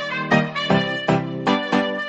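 Background music: a steady beat of quick pitched notes.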